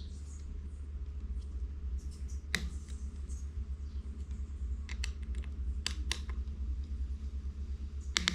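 A handful of separate light metallic clicks and taps from handling the scope-ring screws and a Torx driver, spread out over several seconds, over a steady low hum.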